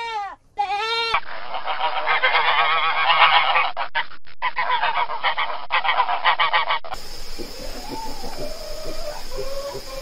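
A goat bleats twice. Then a flock of swans honks, many calls overlapping in a dense chorus. About seven seconds in, this gives way to a chicken's softer, gliding calls.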